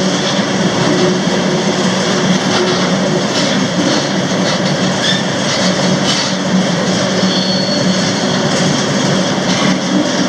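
Freight train rolling: a loud, steady rumble and rattle of the cars, with a few faint knocks.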